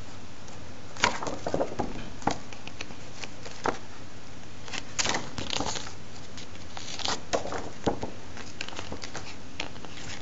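Pages of a paper booklet being handled and turned, with scattered short rustles and crinkles over a steady background hiss.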